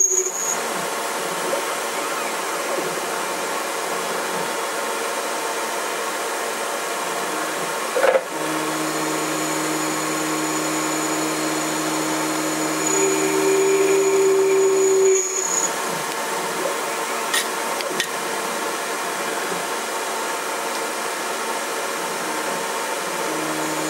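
Denford Orac CNC lathe running, its tool turning a 6082-T6 aluminium bar down in shallow passes: a steady mechanical whirr. Steady pitched tones come in about eight seconds in, with a louder, higher tone for a couple of seconds before they all stop about fifteen seconds in. There is a single knock as the tones start and two faint ticks a little after they stop.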